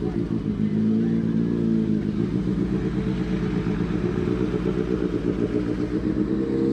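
1986 GMC Sierra Classic 2500 pickup's engine running steadily, a deep drone of several low pitched tones with a pulsing low end.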